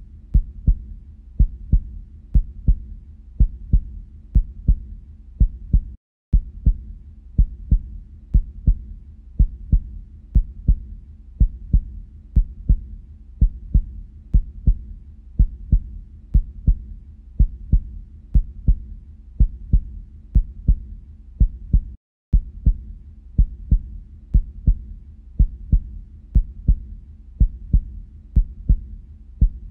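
Heartbeat sound: steady lub-dub beats, each a close pair of low thumps, a little over one beat a second. It cuts out briefly twice, about six seconds in and about twenty-two seconds in.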